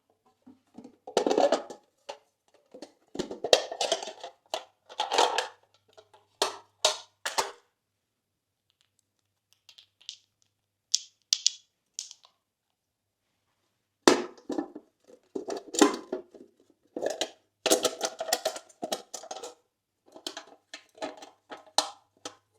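Slime being squished and mixed, in irregular bursts of sticky crackling and squelching with a pause of a few seconds near the middle.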